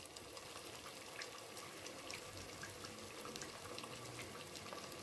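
Churros deep-frying in a pot of hot oil: a faint, steady sizzle with fine crackling.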